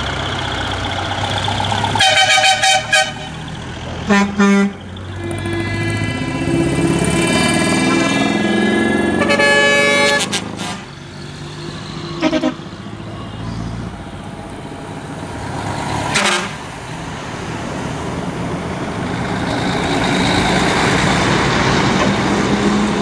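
Air horns on decorated trucks sounding a horn call: quick series of short toots about 2 and 4 seconds in, a longer multi-tone blast from about 6 to 10 seconds, then single short blasts. Under them, the trucks' engines run as they drive past, growing louder near the end.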